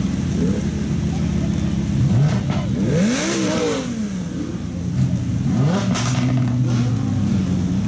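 Lamborghini V10 supercars idling, with two sharp revs of the throttle, about two seconds in and about six seconds in, each rising and falling back to idle.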